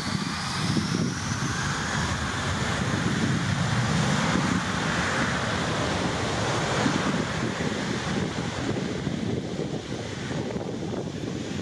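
Twin-engine jet airliner's engines at takeoff thrust during the takeoff roll: a whine that rises in pitch in the first couple of seconds gives way to a steady, loud roar that fades a little near the end.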